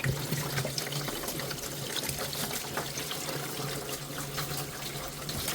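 Water running and trickling over the ice build-up inside a Panasonic fridge to melt it by hand, because a faulty defrost sensor let the ice block form. Many small ticks and crackles sound through the flow, over a steady low hum.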